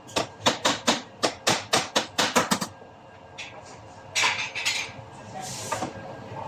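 Body hammer tapping quickly on a dented sheet-metal panel held against a dolly, about five blows a second, stopping a little under three seconds in. A few softer scuffing sounds follow.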